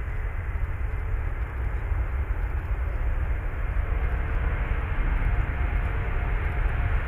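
Antonov An-124-100 Ruslan's four Progress D-18T turbofans running as the freighter rolls along the runway: a deep rumble under a steady jet roar, growing steadily louder.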